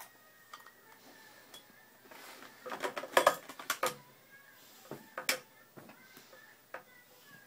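Small hard plastic toy clicking and clattering as a baby handles and knocks it, with a quick flurry of clicks about three seconds in and another sharp click a couple of seconds later.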